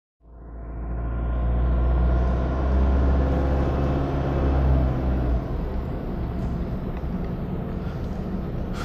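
Inside a moving car's cabin: steady low engine and road rumble that fades in just after the start, its deepest part easing a little about halfway through.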